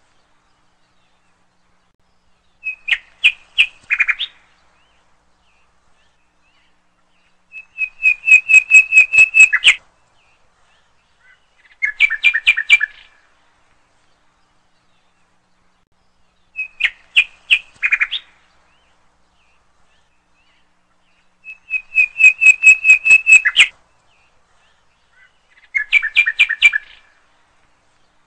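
A songbird singing: six short phrases of fast, clear chirped notes, each a second or two long, with complete silence between them.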